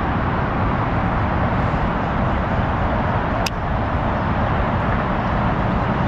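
Wind buffeting the microphone: a steady, loud rumbling noise with one sharp click about three and a half seconds in.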